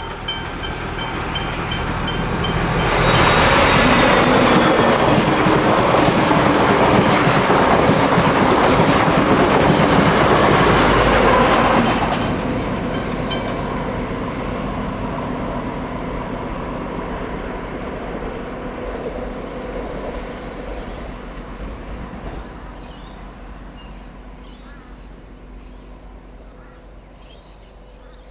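XPT diesel passenger train passing close at speed, the wheels clattering on the rails. It grows loud over the first few seconds, stays loud for about nine seconds, then fades steadily as the train draws away.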